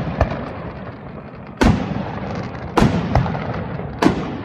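Aerial firework shells bursting directly overhead: five sharp booms about a second apart, two of them smaller, each trailing off in a long echo.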